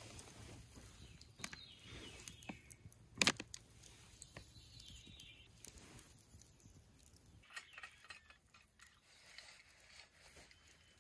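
Wood campfire crackling, with scattered sharp pops and snaps, the loudest about three seconds in.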